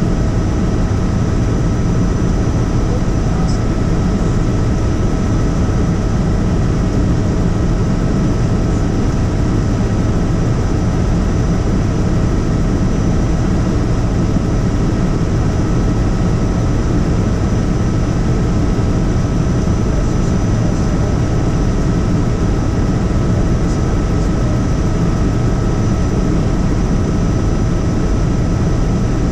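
Helicopter in flight: a steady, loud rotor and engine drone with a constant high whine over it.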